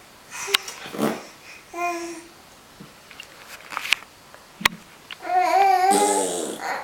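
Six-month-old baby making playful vocal noises: a few short clicks and huffs, a brief pitched sound about two seconds in, then a longer, louder wavering voiced sound near the end.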